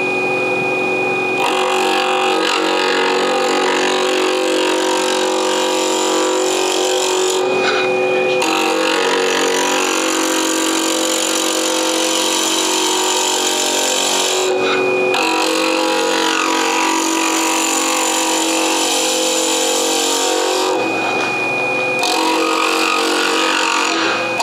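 Small wood lathe running with a steady motor hum and thin whine while a hand-held turning tool cuts the spinning pen blank, a scraping hiss that breaks off briefly a few times as the tool comes off the wood. The round tool doing the cutting is dull, by the turner's own account.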